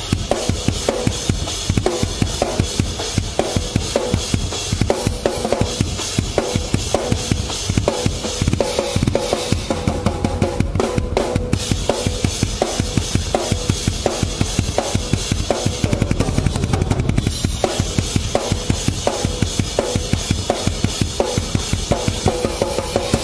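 Drum kit played hard and fast in heavy metal style: rapid bass drum strokes under evenly spaced, driving snare hits and cymbals.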